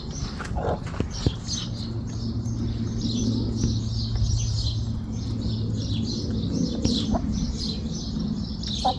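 Small birds chirping over and over in quick, high, short notes, with a steady low hum underneath for a few seconds in the middle.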